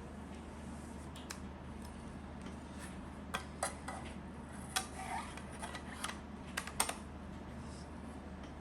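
Handling clicks and clatter as the old laptop hard drive is fitted into a SATA-to-USB external adapter: about eight sharp clicks in the middle of the stretch, over a steady low hum.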